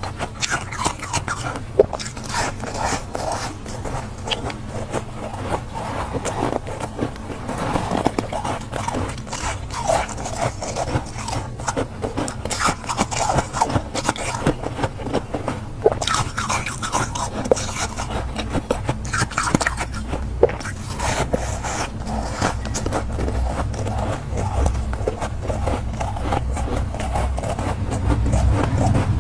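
Soft freezer frost being scraped out by hand and bitten: a dense, continuous run of crisp crunching and scraping crackles.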